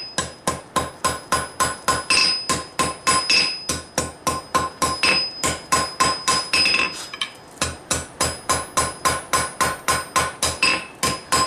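Hammer blows on hot steel at the anvil, about three strikes a second with a bright ring after each, pausing briefly a little past the middle. The smith is forging the tip of an expanded-steel-over-high-carbon san mai billet, working it hot and slow because of a questionable forge weld.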